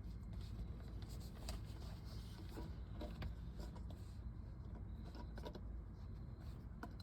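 Faint scattered clicks and scraping of parts being handled as a steering-wheel quick-release hub is worked into place on the steering column, over a low steady rumble.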